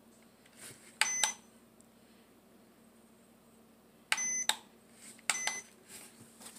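AccuTeck digital postal scale beeping as its buttons are pressed: three short beeps, about a second in, at about four seconds and again a second later.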